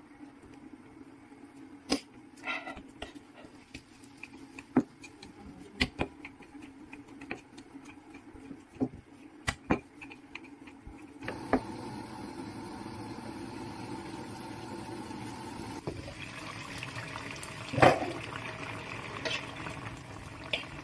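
Scattered sharp taps and knocks as dough is pressed and rolled out with a wooden rolling pin on a silicone mat. About halfway through, a steady hiss of cooking takes over: a stew bubbling in a wok over high heat, with a wooden spatula stirring and clacking against the pan and one loud clatter near the end.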